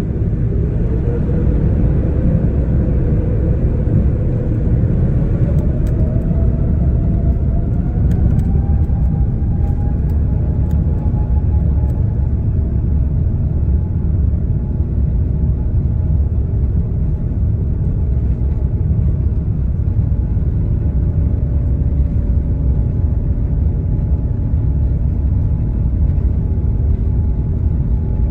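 Airbus A350-900's Rolls-Royce Trent XWB engines at takeoff thrust during the takeoff roll, heard inside the cabin over the wing. A loud, steady rumble runs throughout, and a whine rises in pitch over the first ten seconds or so and then holds steady.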